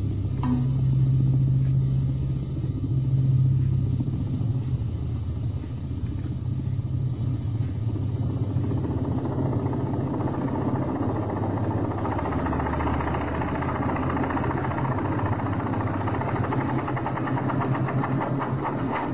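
Helicopter in flight: a steady low engine and rotor drone, with a rushing noise growing in from about eight seconds in.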